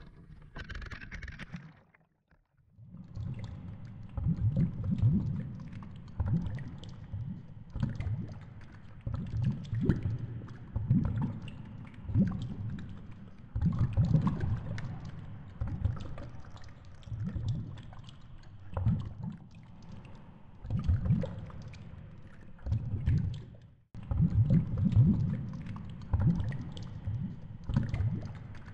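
Muffled underwater rumble of water moving around a GoPro housing as the baited rig sinks, a low sound that surges and eases about once a second. At the start, a short hiss as the camera breaks the surface and goes under.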